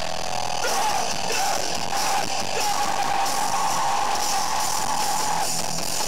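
Hardcore band playing live, heard through a camcorder microphone: loud distorted electric guitars and bass over drums with crashing cymbals, a held high guitar note ringing through the middle.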